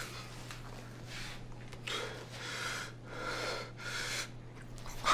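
A man breathing heavily, a series of loud breaths in and out about once a second, over a steady low hum. It ends with a sharp click and cuts off abruptly.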